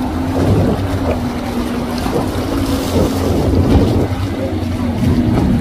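Outboard motor of a center-console boat running steadily at speed, a constant engine drone. The hull splashes through choppy water, with wind noise on the microphone.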